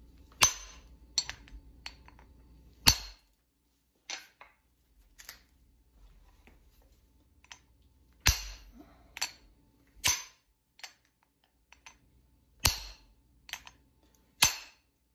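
Two claw hammers striking both sides of a locked Master Lock padlock at once to try to rap it open: about a dozen sharp metal clanks at irregular intervals, some in quick pairs and others a few seconds apart.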